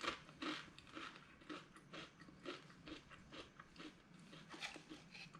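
A person chewing crunchy potato chips, with a crunch about twice a second.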